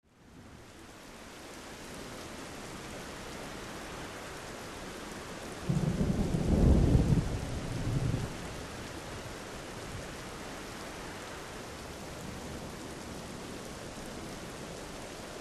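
Steady rain falling, fading in at the start, with a rumble of thunder about six seconds in that lasts a couple of seconds.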